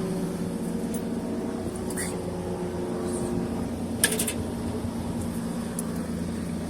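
Steady machine hum of running equipment, several even tones held at a constant level, with one short sharp click about four seconds in.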